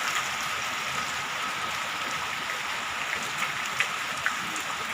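Heavy rain pouring down steadily, with a few sharper drop splashes in the second half.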